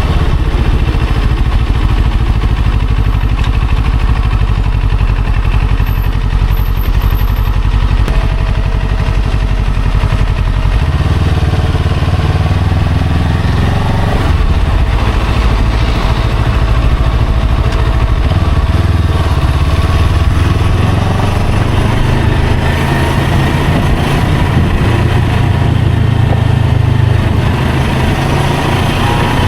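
Motorcycle riding in traffic, its engine running steadily under a heavy low rumble.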